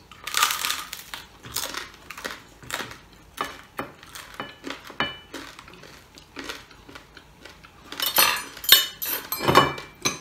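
Crispy pata (deep-fried pork knuckle) crackling crunching: a loud crunchy bite just after the start, then chewing and the crisp skin snapping, with a louder run of crackling near the end as it is broken apart by hand on a plate. Light clinks of the plate run through it.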